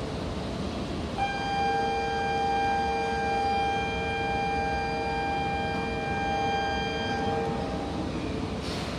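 Steady electronic tone on a Shinkansen platform, a flat multi-pitched buzz or chime typical of a departure signal, held for about six seconds. It starts about a second in and stops a little before the end, over a constant station rumble.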